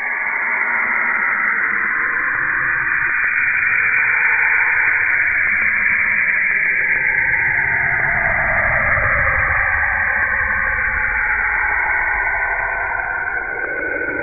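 A space sound presented as the real sound of a planet: a steady hiss like radio static, with hazy tones that glide slowly. One band slides down in pitch through the middle and another rises near the end.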